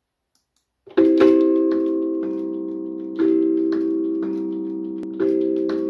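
Tongue drum struck by motor-driven robotic mallets, playing a sequenced tune. After about a second of silence the notes begin: a chord every two seconds with single notes in between, each note ringing on under the next.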